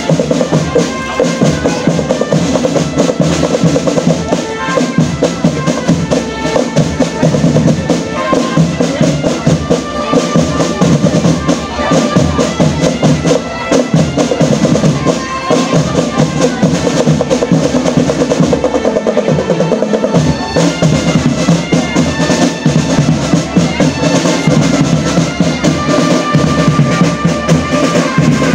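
Marching drum band playing: snare drums rolling over steady bass drum beats, with short held high notes from a melodic instrument on top.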